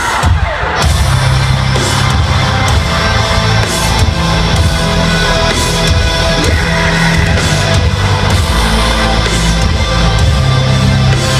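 A live metal band playing loud through a concert PA, with electric guitars and drums. The full heavy playing kicks in about a second in.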